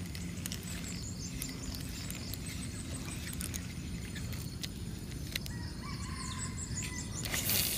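Birds chirping in short runs of high notes, with a falling call a little past the middle, over a steady low outdoor rumble. A brief rustling hiss comes near the end.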